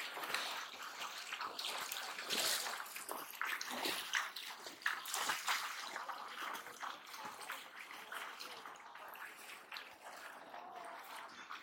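Shallow water splashing and sloshing irregularly as people wade through it with hand-held nets, louder in the first half and easing off later.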